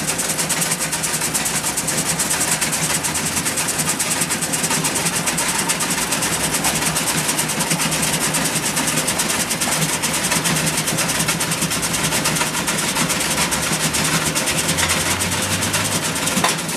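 Britek jaw crusher for construction rubble running under load: a steady motor hum beneath a dense, continuous clatter of rubble being crushed and gravel pouring from the discharge chute.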